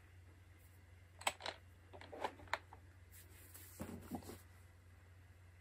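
Quiet room tone with a low steady hum and a handful of short, faint clicks between about one and three seconds in, then a few softer noises around four seconds in.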